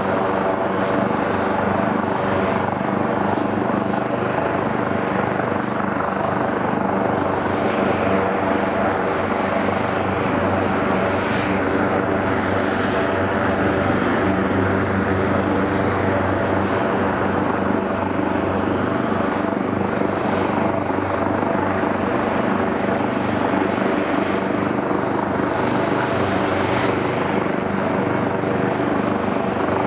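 A helicopter's turbine engine and rotor running steadily, a constant whine over a deep hum, without any rise or fall.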